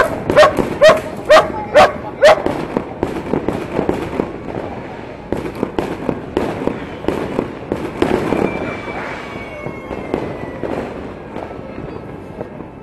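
Firecrackers popping in a rapid string, with a dog barking about twice a second over the first couple of seconds. Later a thin whistle slowly falls in pitch.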